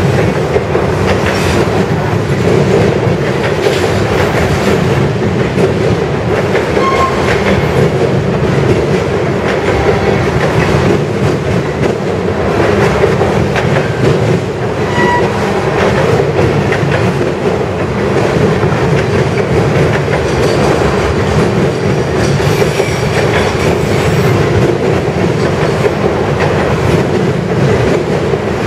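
Freight train tank cars rolling past at close range: a steady, loud rumble of steel wheels on rail with a rhythmic clickety-clack over the rail joints, and a few short wheel squeaks.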